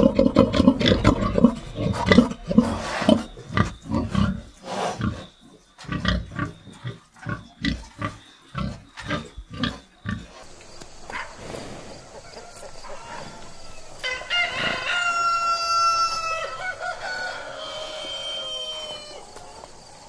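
A pig at a water trough making quick, repeated slurping and grunting noises. In the second half a rooster crows, long held calls with the later one falling in pitch.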